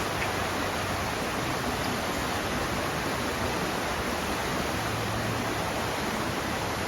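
Rushing water of a fast-flowing creek, a steady, even noise.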